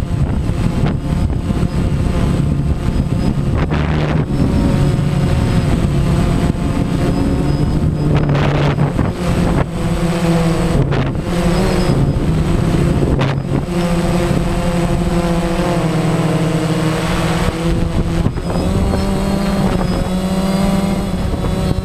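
Multirotor drone's electric motors and propellers running, a steady buzzing hum whose pitch shifts up and down several times as the motors change speed.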